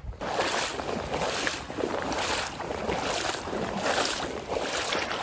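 Someone wading through shallow marsh water, with a swishing splash at each stride, about one every three-quarters of a second.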